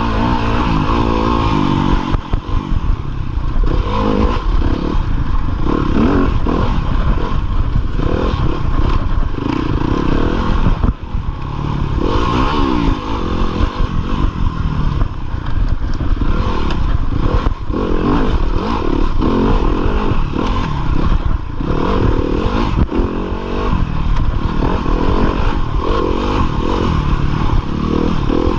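A 2015 Yamaha YZ250FX's single-cylinder four-stroke engine revving up and down repeatedly as the bike is ridden hard off-road, with knocks and rattles, heard from a chest-mounted camera.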